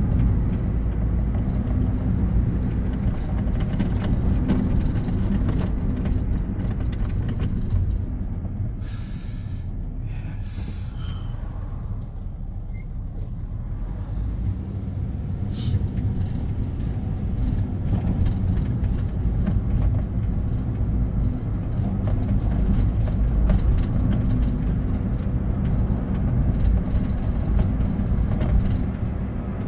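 Road noise inside a moving car's cabin: the steady low rumble of engine and tyres, easing a little for a few seconds in the middle. Two short hisses come a little under halfway through, and a brief tick follows shortly after.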